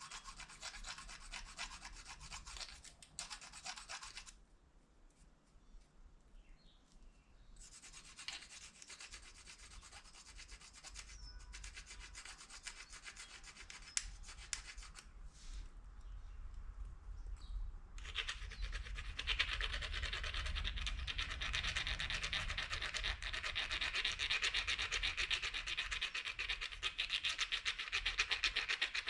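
Plastic fork scraping against the edge of a plastic spoon in rapid rubbing strokes, a dry rasping scratch. It stops for a few seconds near the start, returns faintly, and about two-thirds of the way in becomes louder and steadier.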